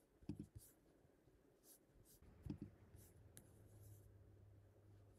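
Near silence: room tone with a couple of faint soft knocks and a faint low hum later on.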